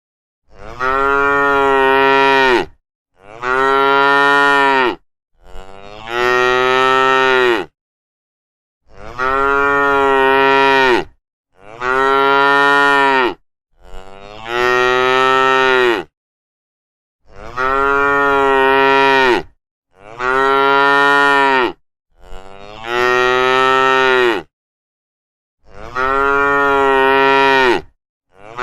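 Cow mooing over and over: about eleven long moos, each about two seconds, falling in pitch at the end, with dead silence between them.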